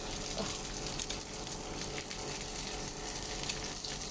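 Gyoza pan-frying in oil, a steady sizzle with fine crackling.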